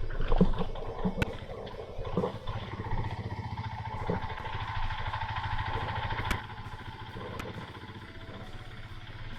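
Motorcycle engine running under way, with a few sharp knocks and rattles.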